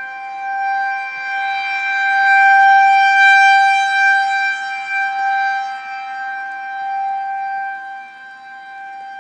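Outdoor tornado warning siren sounding a steady, loud tone that holds one pitch. It swells to its loudest a few seconds in, then fades somewhat.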